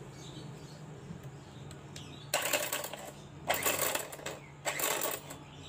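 Miyako electric hand mixer running with a harsh, grating gear noise that comes in uneven spurts from about two seconds in, after a low hum. The rough sound and uneven turning are typical of a broken or worn drive gear.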